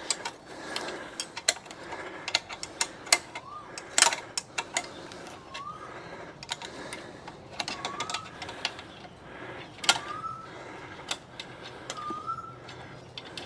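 Scattered metal clicks, taps and knocks of tools and parts being handled on a motorcycle's front fork, with a short rising chirp repeating about every two seconds from a few seconds in.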